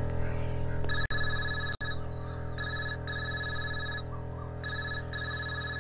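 A mobile phone ringing with an electronic ringtone: repeated short bursts of high beeping tones, starting about a second in, over a steady sustained background music chord.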